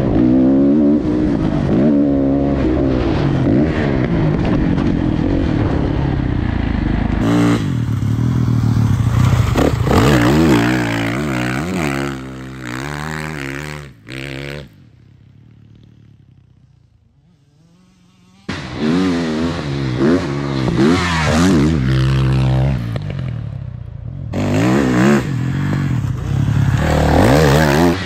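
Motocross dirt bike engine revving hard and falling back again and again as it is ridden round a dirt track, loud and close for most of the time. For a few seconds in the middle it is much quieter and distant.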